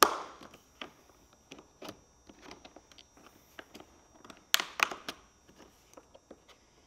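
Plastic trim tool prying at a BMW F10 rear-door sunshade frame, working its plastic retaining clips loose: scattered small clicks and taps of plastic on plastic, a sharper click at the start and a cluster of louder clicks about four and a half seconds in.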